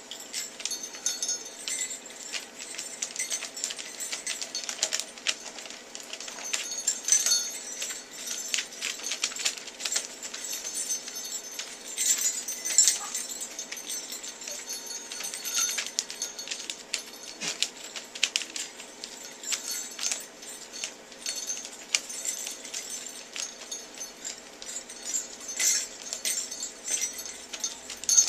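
Sleigh bells jingling and clinking in short, irregular shakes as Toy Poodle puppies nose and paw at them.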